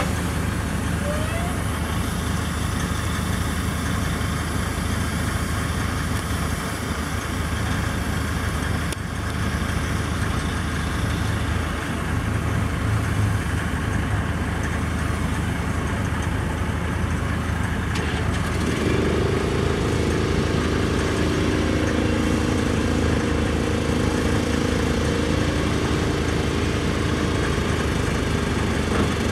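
Heavy truck's diesel engine idling steadily. About two-thirds of the way through, a steady whine of several tones joins the idle and holds for several seconds.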